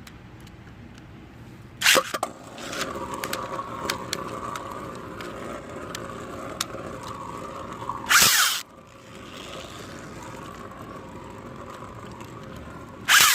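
3D printed Beyblade spinning tops launched into a plastic stadium with a sharp rip about two seconds in, then whirring steadily as they spin, with scattered light clicks of contact. A second loud, short burst of noise comes about eight seconds in, after which a quieter steady whir carries on.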